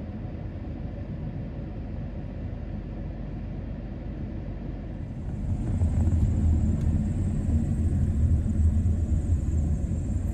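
Car running with a steady low rumble that grows louder about halfway through, with a faint high whine joining it.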